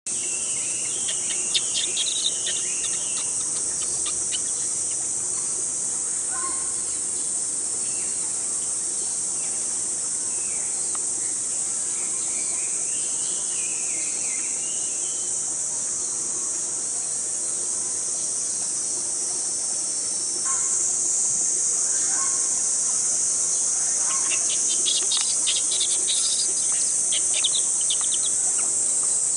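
A steady, high-pitched insect chorus runs throughout. Over it come intermittent high squealing cries from a baby monkey: a few near the start, a rising-and-falling one midway, and a quick run of them near the end.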